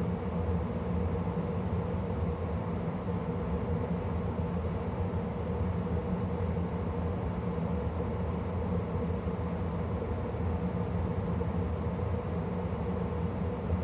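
2013 Carrier gas furnace running in its cycle: a steady hum of blower and airflow with a constant low drone and a steady mid tone, unchanging throughout.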